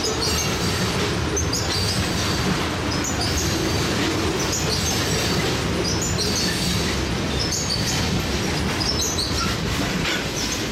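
Loaded tank cars of a freight train rolling past on steel rails: a steady rumble of wheels on track, with short high wheel squeals coming about once a second.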